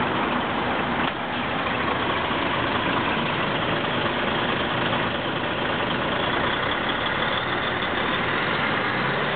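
Heavy truck's diesel engine idling steadily, heard close to its side-mounted silencer and exhaust pipe.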